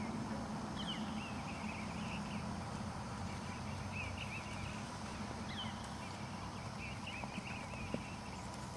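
Birds chirping throughout over a steady outdoor hiss, with soft hoofbeats of a horse walking on grass and one small click near the end.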